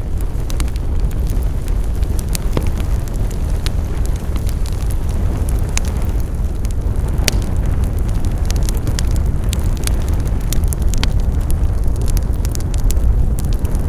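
Wood fire crackling: many sharp, irregular pops and snaps over a steady low rumble of the burning fire.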